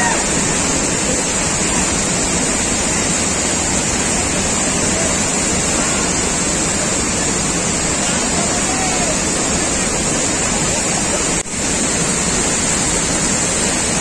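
Kaigal waterfall in full flood: a heavy volume of water pouring over the rock face and crashing into the pool, a loud, steady rushing noise. It drops out for an instant about eleven and a half seconds in.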